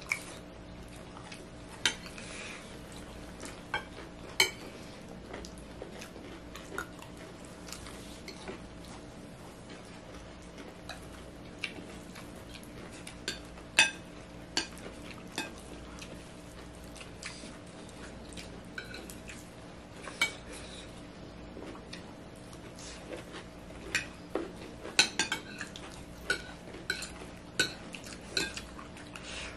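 Forks clinking and scraping against ceramic plates as several people eat, in scattered, irregular clinks over a faint steady hum.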